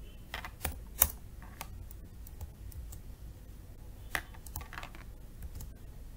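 Typing on a computer keyboard: scattered, irregular keystrokes, the loudest about a second in, with a quick run of keys about four seconds in.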